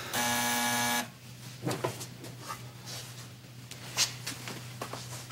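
Electric door buzzer sounding once for about a second, a steady harsh buzzing tone. A few faint footsteps and knocks follow.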